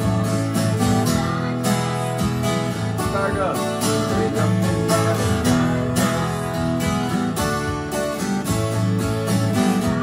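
Takamine twelve-string acoustic guitar strummed through a chord progression in a steady rhythm, with a man's voice singing the melody over it.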